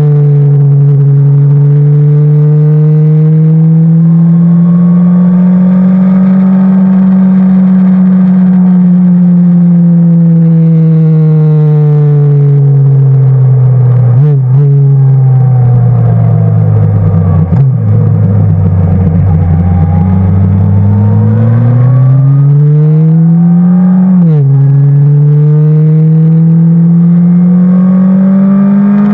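Sport motorcycle engine pulling hard at high revs on a twisting road, its pitch rising and falling with the throttle. Brief breaks in the note come at gear changes about fourteen and seventeen seconds in, and a rise ends in a sharp drop at a shift about twenty-four seconds in.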